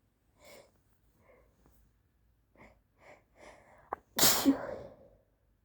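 A woman sneezes once into a handkerchief, near the end, after a few short, faint in-breaths as the sneeze builds.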